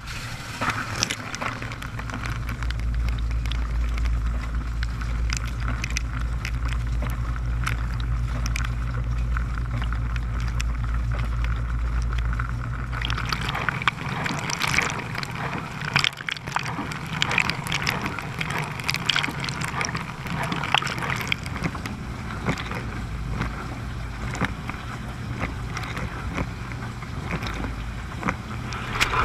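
GE dishwasher running its wash cycle, heard from inside the tub: the pump hums steadily while water sprays and splashes over the racks and walls. About 13 seconds in the deepest part of the hum drops away and the splashing turns sharper and more spattery.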